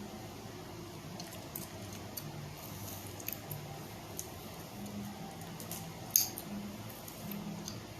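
Chewing gum clicked and snapped in the mouth: scattered small wet clicks, with one loud sharp snap about six seconds in.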